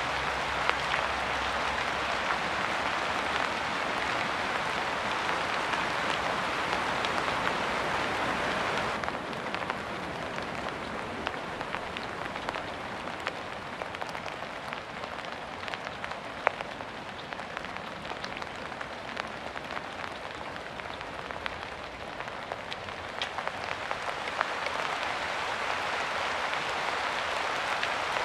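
Steady rain falling, a dense hiss with scattered sharper drop ticks. About a third of the way in it suddenly turns softer and thinner, with more separate drops heard, then swells back to the fuller downpour near the end.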